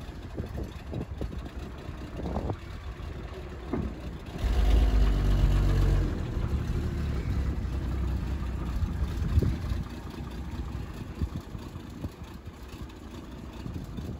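1981 Ford F-150 pickup's engine idling, revved briefly about four seconds in and settling back to idle.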